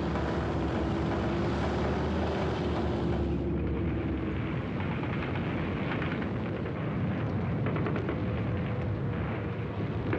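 Battle sound track laid over archive film: military vehicle engines running with a steady drone, turning about three and a half seconds in to a denser rattling clatter.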